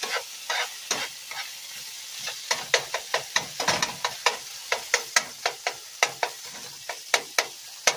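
Haddock pieces sizzling in a non-stick frying pan on medium heat while a utensil stirs them, scraping and clicking against the pan. The clicks come faster, about three or four a second, from about two and a half seconds in.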